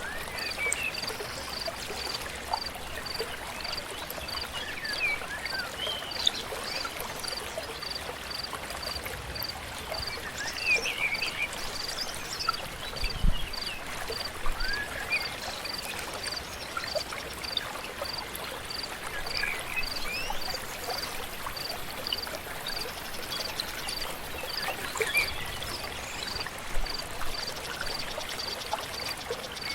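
A flowing stream with scattered bird chirps and calls. Behind them runs a high note that pulses evenly, a little faster than once a second.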